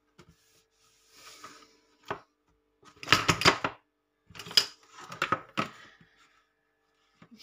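Containers and other things being picked up and set down on a kitchen countertop: a string of knocks and clatters, loudest in a cluster about three seconds in, with a few more after it.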